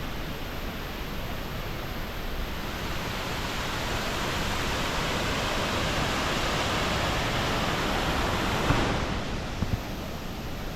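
Steady rushing of Diyaluma Falls, a 220 m waterfall in heavy flow after rain. The rush swells through the middle and drops back about nine seconds in.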